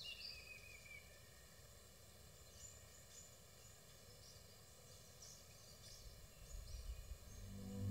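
Near silence: faint outdoor ambience with birds, a short whistle falling in pitch in the first second, then scattered faint high chirps.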